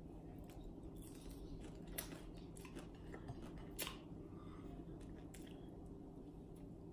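Quiet eating with the fingers: hand picking through rice and crispy dried fish on a plate, with a few small sharp clicks and crunches, the clearest about two seconds in and just before four seconds, over a low steady hum.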